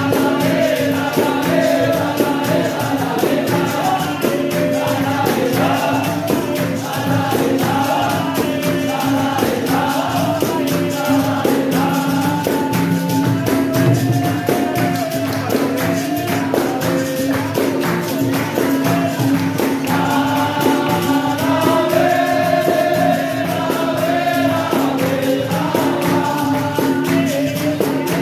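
Capoeira roda music: a group singing call-and-response over the steady rhythm of pandeiro, berimbau and atabaque.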